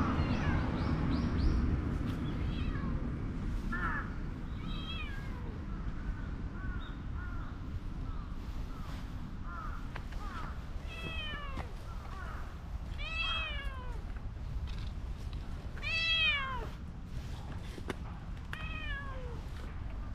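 A cat meowing again and again, about ten short calls spread out, each sliding down in pitch; the loudest come about two-thirds of the way through.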